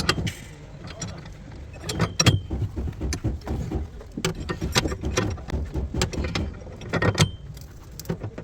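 Irregular clatter of metal knocks and clinks from work on a car body, with a short metallic ring about two seconds in and again about seven seconds in.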